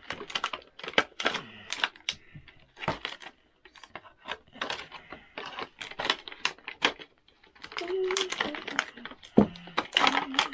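Clear plastic packaging bags crinkling as they are handled and pulled open, in quick runs of sharp crackles with short pauses between.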